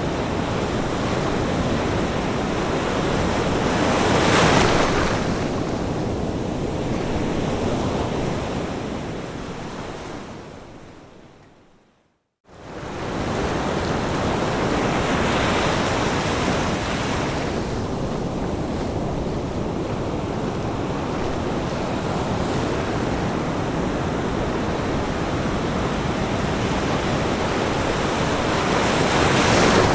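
Ocean surf washing onto a beach: a steady hiss of water with a wave surging louder three times. About twelve seconds in, the sound fades away to silence for a moment and then swells straight back up, the seam where the recording loops.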